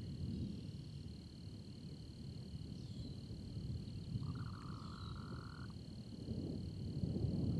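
A frog's buzzy trill, one note about a second and a half long just past the middle, over a steady high-pitched insect drone and the low rumble of a storm that swells near the end.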